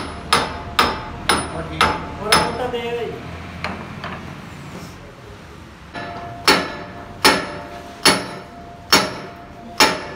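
Hammer blows on steel, each with a short metallic ring: a quick run of about six strikes, a pause of a few seconds, then steady strikes about one every 0.8 seconds.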